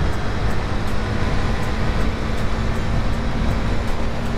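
Steady wind rush on the camera microphone while riding a KTM Duke 250 motorcycle at road speed, with the bike's single-cylinder engine holding a steady drone.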